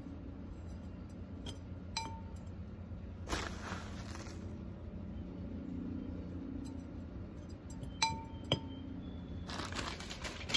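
Metal spoon clinking against a ceramic pot while perlite is scooped and tipped in. There is a sharp clink with a short ring about two seconds in and two more near the end, with stretches of grainy rustling pouring between them.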